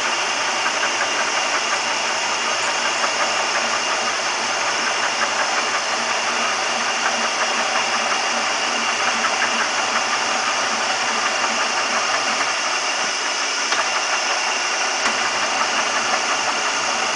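Jarbe F2-CM universal milling machine running its power feed, driving the table along the X and Y axes at once. A steady mechanical whir with fine, rapid ticking throughout.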